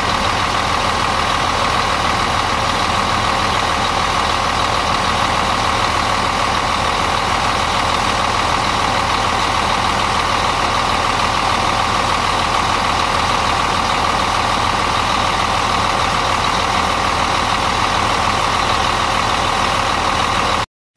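Scania coach's rear-mounted diesel engine idling steadily with the engine hatch open, with a steady whine over its running. The sound cuts off suddenly near the end.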